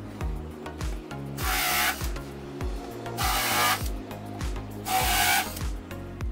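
WORKPRO 12V cordless drill with a countersink bit, cutting countersinks into melamine-faced MDF in three short bursts of about half a second each. Background music with a steady beat plays underneath.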